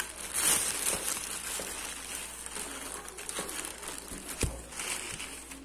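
Plastic bags and cling-film wrapping crinkling as hands handle plastic-wrapped bread rolls, with a single dull thump about four and a half seconds in.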